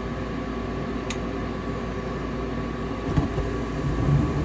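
Gas furnace running with its new Fasco draft induction blower motor humming steadily and quietly. A sharp click comes about a second in and a knock about three seconds in, after which a lower rumble grows louder near the end.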